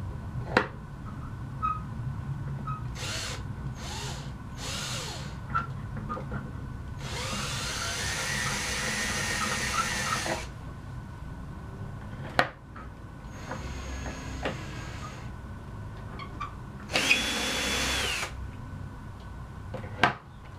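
Ryobi cordless drill/driver running in about six separate runs as it takes out the screws holding a chair seat. There are a few short spurts, then one run of about three seconds with a rising whine, then shorter runs, with a few sharp clicks in between.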